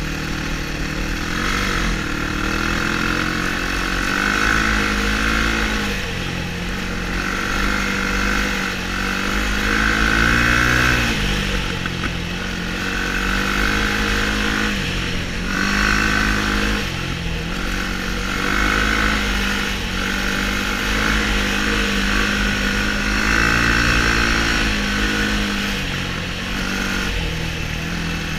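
Sport quad (ATV) engine heard from the rider's seat, revving hard on the ice, its pitch climbing with the throttle and dropping back again and again as the rider accelerates and backs off.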